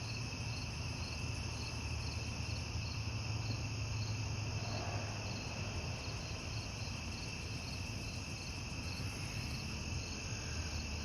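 Crickets chirping in a steady, evenly pulsing chorus, over a low steady hum.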